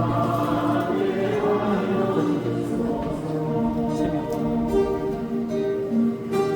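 A choir singing a slow gospel song in long held notes, with guitar accompaniment.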